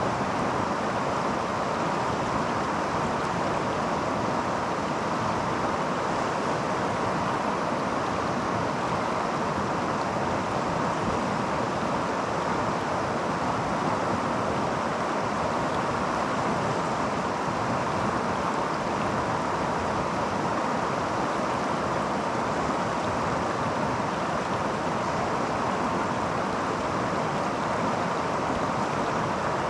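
Creek water flowing, a steady, even rush with no breaks.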